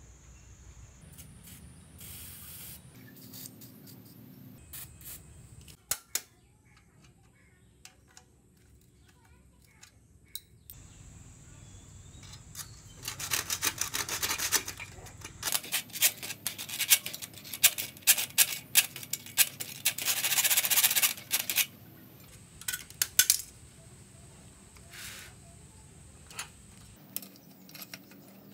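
Hands and tools working on a rusted steel bicycle frame's bottom bracket: scattered metal clicks and clinks with rubbing and scraping, thickening into a busy run of clicks and scraping through the middle, then settling to occasional clicks.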